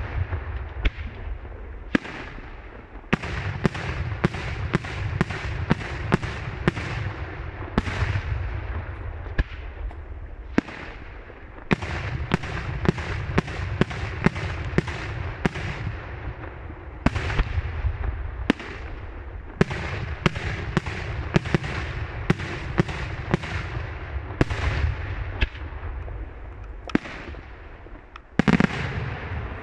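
Daylight fireworks display: aerial shells bursting in rapid volleys of sharp bangs, several a second, with a low rumble underneath. The volleys are separated by brief pauses.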